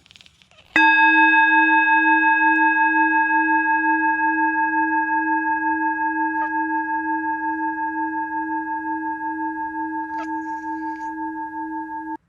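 A struck metal bell or bowl rings out once, about a second in, holding several steady tones with a slow pulsing wobble in the lowest one and fading gradually over about eleven seconds before cutting off suddenly near the end.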